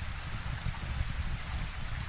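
Steady rainfall with a low rumble underneath, and a scattering of faint small crackles from a wood fire.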